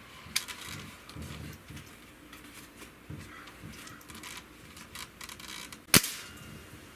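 A .177 Hatsan 125 Sniper breakbarrel air rifle with a Vortex gas piston fires a single sharp shot about six seconds in. Faint small clicks come before it.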